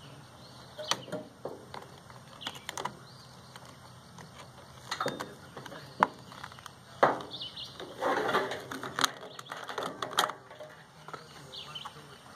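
Irregular sharp clicks and knocks of metal microwave parts being handled and pried apart, with a short rattling scrape about eight seconds in.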